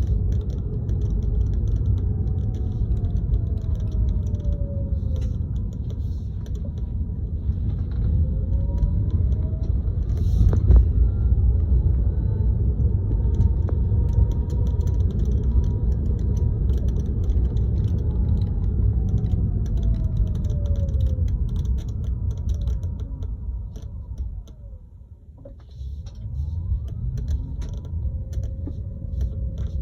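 Cabin noise of a moving Tesla Model 3: steady road rumble and a whine that rises and falls in pitch with speed, with faint intermittent rattling ticks from somewhere in the car. The rumble drops away briefly near the end, as if the car slows, then builds again.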